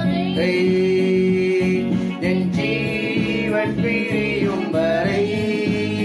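Tamil Christian worship song sung with instrumental accompaniment; the melody is held and slides between long sung notes.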